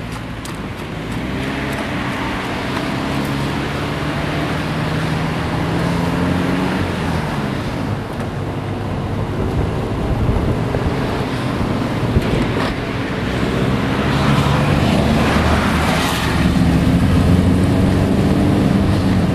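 Toyota Prius driving, heard from inside the car: steady road and tyre rumble, with an engine note that rises twice as the car speeds up, growing louder overall.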